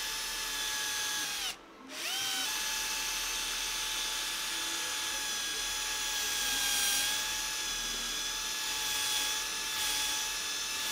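Electric drill motor whining steadily as it bores a hole through plywood. About a second and a half in the trigger is let go and the whine winds down, then winds back up and runs on while drilling.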